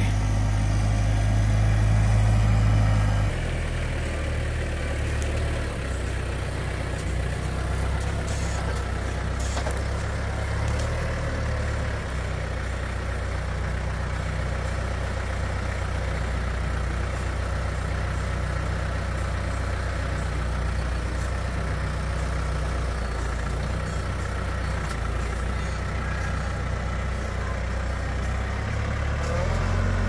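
Branson 4720 compact tractor's diesel engine running at a steady speed, a low, even drone that drops in level about three seconds in.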